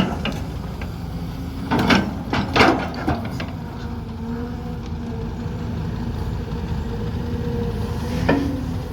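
Kobelco SK200 Super excavator running, its engine and hydraulics droning steadily, with a cluster of sharp metallic clanks about two to three seconds in and another near the end. The clanks come from the bucket knocking in its worn, loose linkage.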